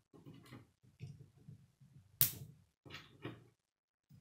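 Plastic K'nex pieces being handled and snapped together, with soft clicks and handling noise and one sharp snap about two seconds in.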